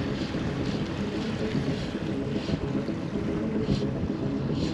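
Steady wind buffeting the microphone, with shallow water lapping and hissing around the angler's legs.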